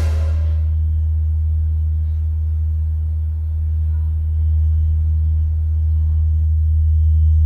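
A loud, steady low drone with no rhythm or melody, likely a sound-design tone. The tail of a sharp hit fades out in the first half second.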